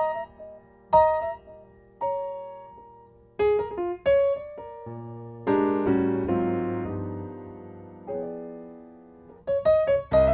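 Background piano music: slow, sparse notes that ring and fade, a fuller passage of chords about halfway through, and quicker notes near the end.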